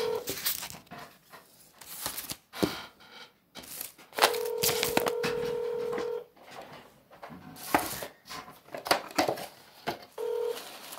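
Telephone ringback tone on a phone line, heard by the caller while the far end rings. One steady two-second ring comes about four seconds in, with clicks and faint line noise in the gaps. A brief start of the next ring near the end is cut off as the call is picked up.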